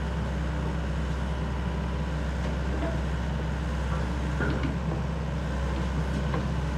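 Sany SY75C excavator's diesel engine running steadily as the boom slowly lowers the bucket, with a few faint clicks and knocks.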